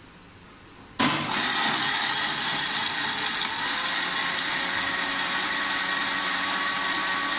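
Electric countertop blender switched on about a second in, its motor running steadily as the blades grind mint leaves in lemon juice and Sprite.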